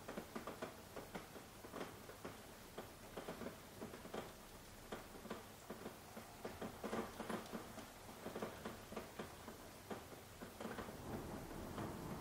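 Soft rain, its drops pattering in many small irregular ticks over a light hiss that grows denser and steadier near the end.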